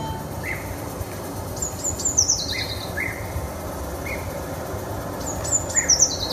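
Recorded birdsong played through a hall's speakers: two high trilled phrases a few seconds apart, each falling in pitch, with a few short lower chirps between them.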